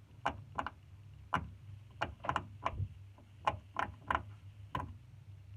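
Small plastic clicks and pops from fidget toys being handled, about fifteen sharp, irregularly spaced clicks.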